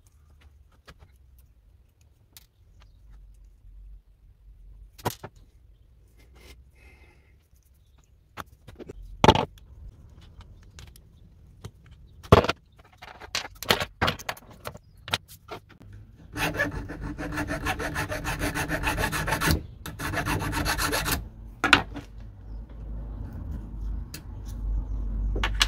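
Small metal parts of an old battery cell tester being taken apart by hand: scattered light clicks and a few sharp metal knocks, then, from a little past halfway, a long run of fast, even rasping strokes of a hand tool on a steel bracket, pausing briefly and going on more quietly near the end.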